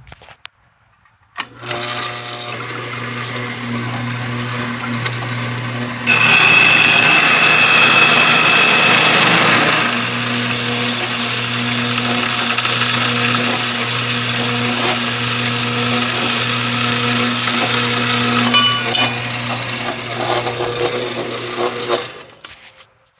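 Metal-cutting bandsaw switched on and cutting steel: a steady motor hum with grinding from the blade. It is louder, with a high whine, for a few seconds after about six seconds in, then runs on steadily and stops near the end.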